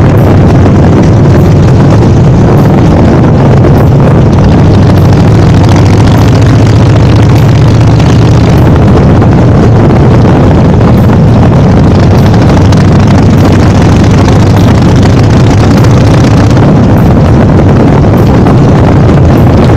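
Motorcycle engine running steadily under way, with wind noise on the microphone.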